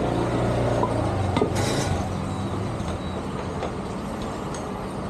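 Busy street ambience with a low, steady engine hum that is strongest in the first couple of seconds, like a motor scooter running, and a few light clinks and clicks.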